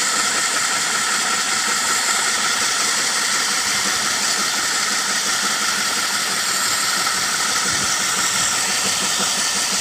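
Electric diamond core drill on a rig stand running steadily under load as its wet core bit grinds down into concrete: a steady high whine over a hissing grind that stays even throughout.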